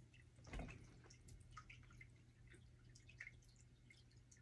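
Near silence: room tone with a steady low hum and faint scattered ticks, and one short soft sound about half a second in.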